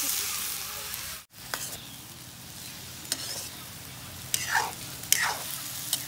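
Chopped green vegetables sizzling in a stainless-steel wok over a wood fire while a metal spatula stirs them. The sound cuts out briefly just after a second in and comes back as quieter sizzling, with two sharp scrapes of the spatula against the wok near the end.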